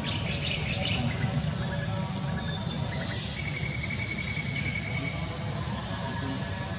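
Steady high-pitched drone of insects, crickets or cicadas, over a low rumble, with a short high trill about halfway through.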